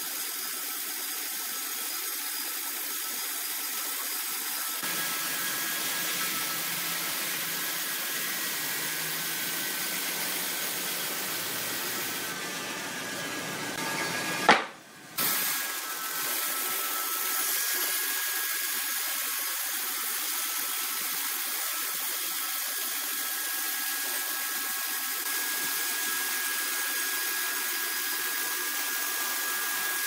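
Bandsaw mill blade running steadily through a large block of red hardwood, a constant sawing hiss with a thin high whine. About halfway through, a sharp click and a brief dropout, after which the sawing continues.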